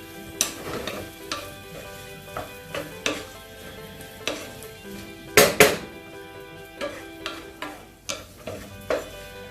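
Shrimp, butter and onion sautéing over high heat in a frying pan: a steady sizzle under a utensil stirring and scraping the pan, with irregular clinks and two louder knocks about five and a half seconds in.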